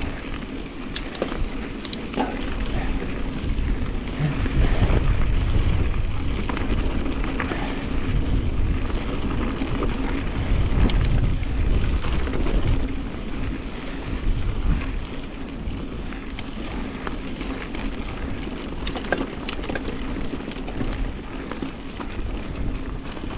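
Wind buffeting the microphone with a heavy low rumble while mountain bike tyres roll over a dirt trail, with scattered ticks and rattles from the bike.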